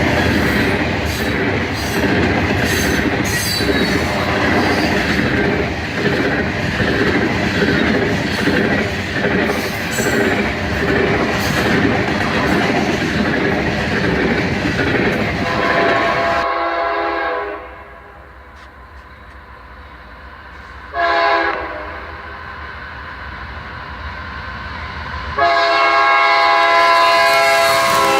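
A train passing close by, its wheels clacking over the rail joints. It gives way to a locomotive's multi-tone air horn: two short blasts a few seconds apart, then a longer blast near the end.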